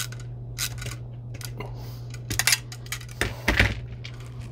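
Light metallic clicks and clinks from a metal electrical box and its wires being handled, with a few louder knocks about two and a half and three and a half seconds in. A steady low hum runs underneath.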